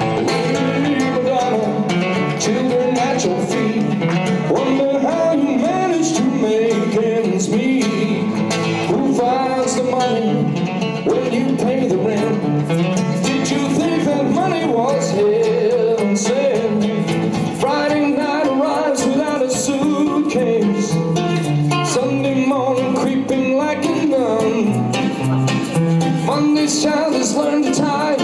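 Live music: guitar playing with a man singing into a microphone.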